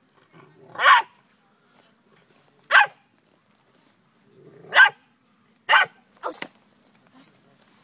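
Vizsla puppy barking in rough play: five short, high barks a second or two apart, the last two close together.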